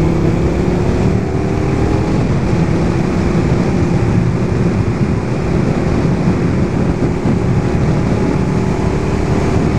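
Motorcycle engine running as the bike pulls away and cruises, its tone climbing gently over the first couple of seconds and then holding steady, under heavy wind rushing over the camera microphone.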